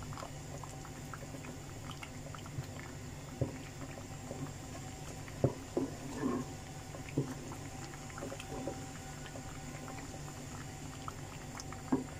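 A spoon stirring thick, paste-like haleem in a cooking pot: soft squelches with a few light knocks of the spoon against the pot, over a steady low hum.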